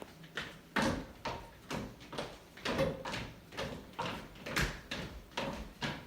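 Rapid footfalls on a hard stage floor, an even run of sharp thuds about two to three a second.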